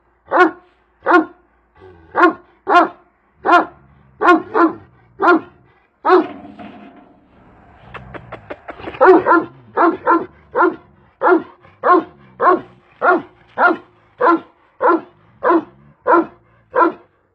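Kangal shepherd dog barking over and over, one bark about every two-thirds of a second, with a pause of a couple of seconds near the middle before the barking resumes.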